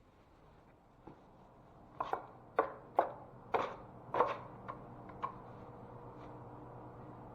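A series of about eight sharp taps or knocks over some three seconds, starting about two seconds in, over a steady low hum.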